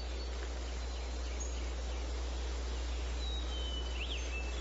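Steady outdoor ambience, a faint even hiss over a low hum, with a few faint high bird chirps about three to four seconds in.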